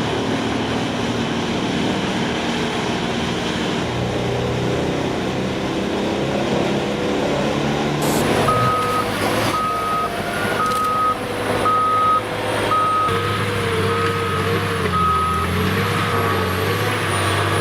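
Heavy machinery engine running steadily. About halfway through the sound changes, and a reversing alarm beeps roughly once a second for several seconds over an engine whine that wavers in pitch.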